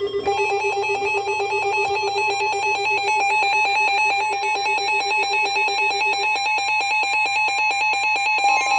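Emergency alert tone: a loud electronic alarm of several steady tones sounding together with a rapid, even flutter, signalling that a new warning, here a tornado warning, is about to be broadcast. The mix of tones shifts near the end, when a steadier higher tone comes in.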